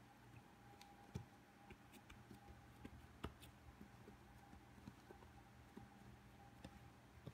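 Faint, scattered soft pats and taps of hands pressing and shaping bread dough on a plastic cutting board, over a low steady hum.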